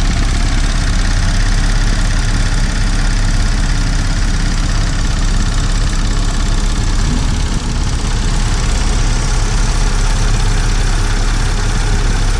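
Audi Q7's 3.0-litre supercharged V6 idling steadily, heard close up from the open engine bay.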